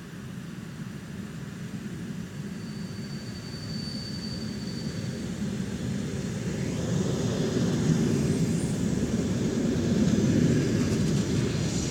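Six-car ER9M electric multiple unit arriving and rolling past close along the platform, its running noise growing steadily louder as it draws near.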